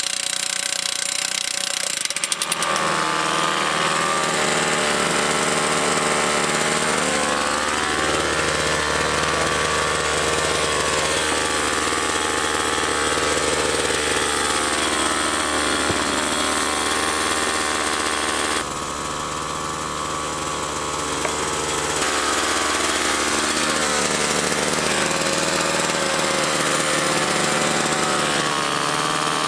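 Engine-powered T-post driver hammering steel fence posts into the ground, a continuous fast hammering. Its level drops for a few seconds about 19 s in, then picks back up.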